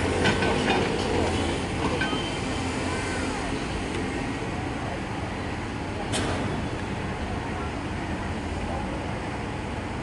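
Hydraulic excavator's diesel engine running steadily while the boom is lowered. There is a sharp knock about six seconds in, and town traffic noise underneath.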